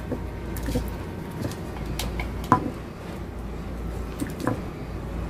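Light clicks and taps of hands handling and reconnecting the bare ends of an exhaust fan's capacitor wires, the sharpest tick about halfway through, over a low steady hum.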